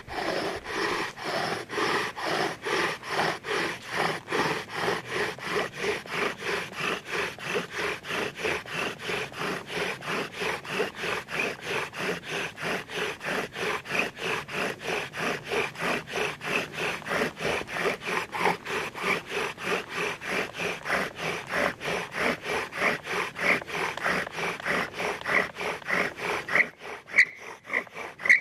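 Bow drill being worked for a friction fire: the bow sawing back and forth at about three strokes a second while the wooden spindle grinds against the fireboard. The strokes pause briefly near the end, then resume with a few sharper strokes.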